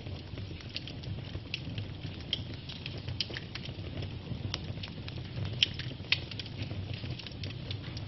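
Wood log fire crackling: a steady low rumble of flames with scattered sharp pops and snaps, two of them louder about two-thirds of the way through.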